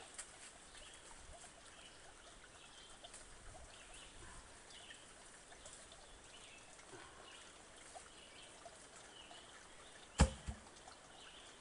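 Faint scattered bird chirps over a quiet woodland background, then about ten seconds in a heavy thump as a cut log section is dropped on the ground, with a smaller knock just after.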